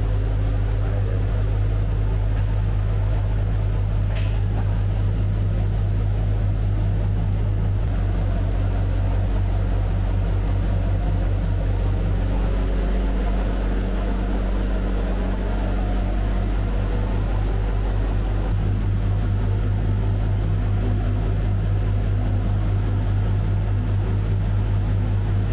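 Steady low mechanical hum, easing slightly for a few seconds midway.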